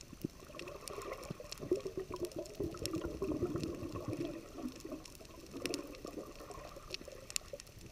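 Underwater coral-reef soundscape: sharp, scattered clicks of snapping shrimp all through, over a low burbling that swells about a second and a half in and fades a few seconds later.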